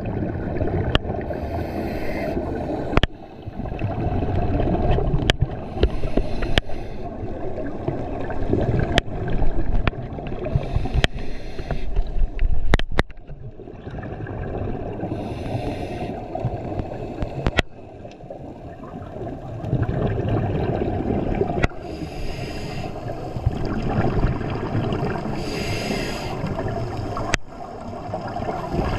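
Underwater gurgling and bubbling from a scuba diver's exhaled breath, swelling and fading every few seconds, with scattered sharp clicks.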